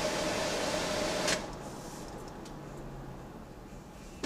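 Two-way radio static: a steady hiss with a steady low tone, cut off abruptly with a click a little over a second in. After that only faint vehicle cabin noise remains, with a small click near the end.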